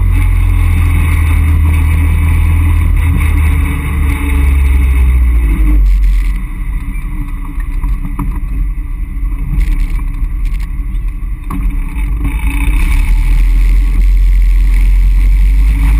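Caterham Roadsport 175's engine and exhaust heard from its open cockpit, with wind rush on the microphone. The engine note falls as the car slows, runs quieter from about six seconds in, and picks up again near the end as the car pulls away.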